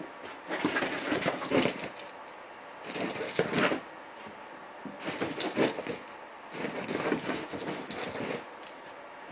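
Five-week-old basenji puppies play-fighting on a blanket-covered bed: four bursts of scuffling and tumbling with small puppy whimpers, with quieter gaps between.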